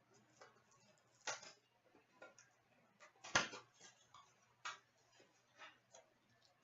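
Trading cards and their packaging being handled on a table: a few scattered light clicks and taps, the loudest about three and a half seconds in.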